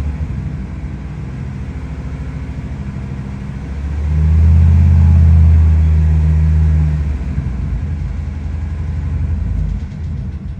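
Ford F-250 engine running in park, revved up for about three seconds roughly four seconds in, then dropping back toward idle. The run-up tests a valvetrain tick that goes away at around 2000 rpm.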